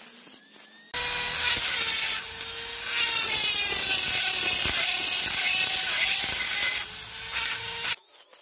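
Handheld rotary tool with a small ball burr grinding into a sea shell: a harsh grinding hiss over a steady motor whine, swelling and easing as the burr works the surface. It starts about a second in and cuts off abruptly near the end.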